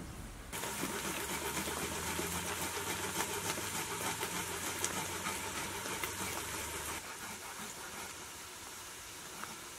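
Garlic cloves grated on a metal box grater: a run of rapid rasping scrapes that starts abruptly about half a second in and stops abruptly about seven seconds in, leaving a fainter steady hiss.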